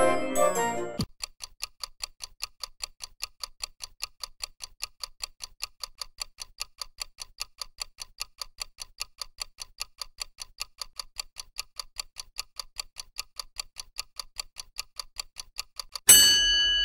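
Clock-ticking sound effect of a countdown timer, steady at about four ticks a second, ending in a short, louder ringing alarm tone as it reaches zero. The last second of a keyboard jingle plays before the ticking starts.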